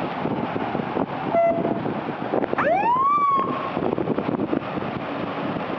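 A single rising siren whoop about halfway through, preceded by a short car-horn toot, over a steady rushing noise.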